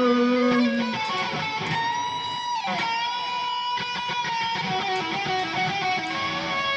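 Harley Benton SC-500 Les Paul-style electric guitar played through an Overloud TH3 amp simulator, strummed chords with long sustained notes. Near the middle a held note rings steadily, and a brief falling slide in pitch comes just before it fades.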